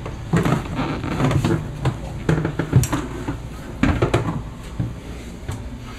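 Irregular knocks and clunks, about eight scattered through a few seconds, with a low background hum in a small enclosed room.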